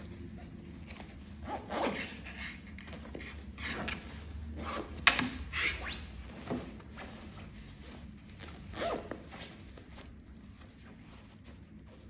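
A padded stroller footmuff with a waterproof nylon shell being handled: irregular rustles and swishes of the quilted fabric as it is lifted and flapped, with a zip being worked. One sharp knock stands out about five seconds in, and the handling grows quieter toward the end.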